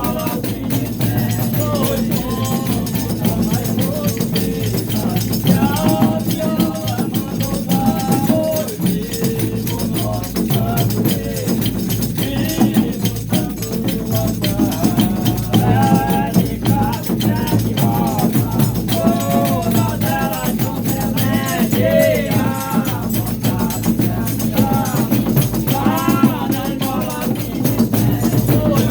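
Brazilian Reisado folk music: voices singing a melody in short phrases over a continuous rattle of shaken percussion such as tambourine.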